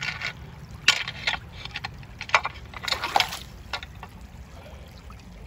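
Steel rake tines scraping and clacking against stones on a shallow creek bed, with water sloshing, as a geode is raked out of the water. Several sharp knocks come in the first four seconds, then only the running water.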